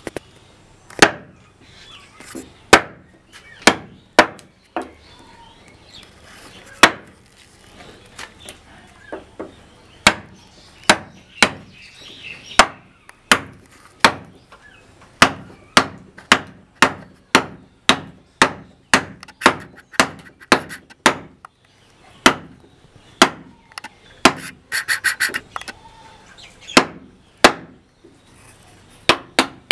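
Ball-peen hammer striking a wooden-handled chisel, cutting into a wooden door-frame post: a long series of sharp knocks, a few at first, then a steady run of about two a second. A quick flurry of lighter taps with a metallic ring comes near the end.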